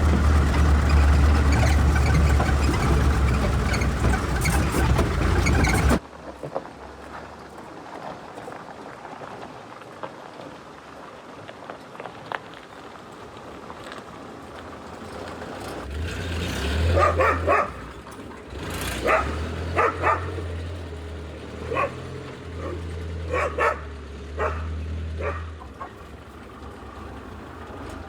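A vehicle engine runs steadily with a low rumble and cuts off abruptly about six seconds in. Later a dog barks about a dozen times in short, sharp barks over some ten seconds.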